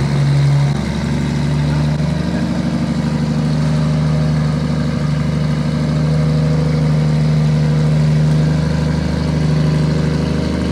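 Toyota 1JZ 2.5-litre turbocharged straight-six idling steadily, just after being started from cold after a long spell without running.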